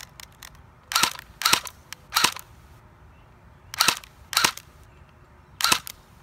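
Battery-powered HK MP7 airsoft gun firing single shots, each a short sharp report: three in quick succession about half a second apart, then two more, then one near the end.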